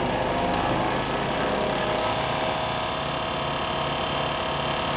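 Wood chipper's small petrol engine running steadily under load while branches are fed through and chipped.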